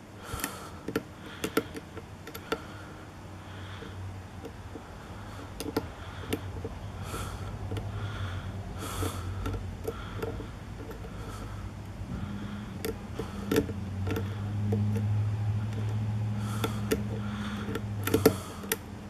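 Light, scattered clicks and scrapes of a short hook pick and tension wrench working the pins of a Tesa pin-tumbler lock, over a steady low hum that grows louder about twelve seconds in.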